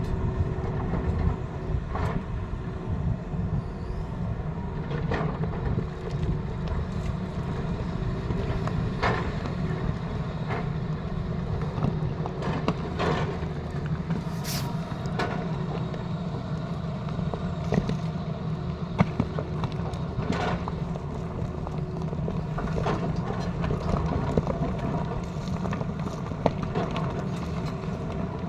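Tata Hitachi excavator's diesel engine running steadily under load, with scattered knocks and scrapes from the digging. A short hiss comes about halfway through.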